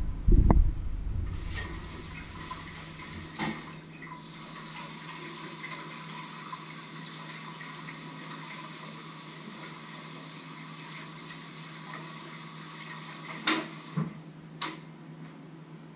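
Kitchen tap running into a stainless-steel sink for about ten seconds, opening with a loud bump and ending with a few sharp knocks of pots or dishes.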